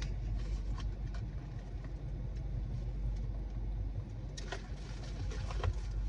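Steady low hum of a parked car's engine idling, heard inside the cabin, with a few faint clicks and rustles.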